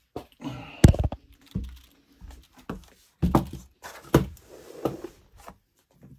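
Handling noise as a heavy metal-plated championship belt is moved and laid down: several dull thuds and knocks, the loudest about a second in, with rustling between.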